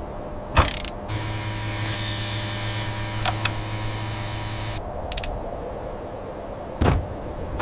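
A steady hum with a hiss over it, lasting about four seconds, that starts and stops abruptly. A few sharp clicks come before and after it, and there is a short thump near the end.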